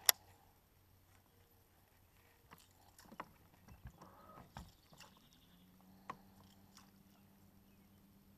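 Fishing tackle handled during a lure retrieve: one sharp click right at the start, then scattered light clicks and ticks. A low steady hum comes in about five seconds in.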